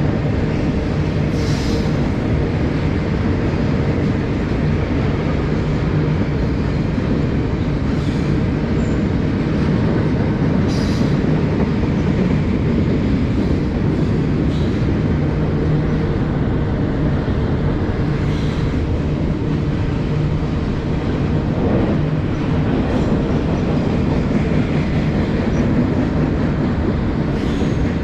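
Freight train rolling past on the Norfolk Southern Lehigh Line: a steady, loud rumble of wheels on rail, with brief sharp high squeaks or clicks every few seconds.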